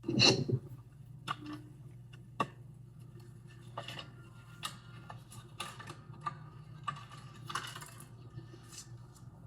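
Irregular clicks, taps and rattles of a plastic electric space heater's housing and its small screws being handled with a screwdriver during disassembly, opening with a loud clatter. A steady low hum runs underneath.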